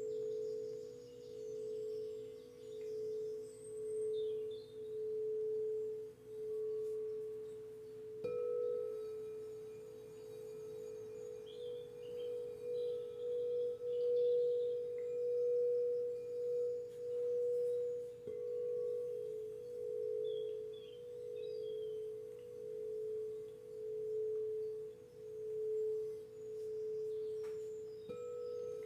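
Singing bowl ringing with a slow, pulsing wobble, struck again about every ten seconds so the tone never dies away. Faint bird chirps sound here and there behind it.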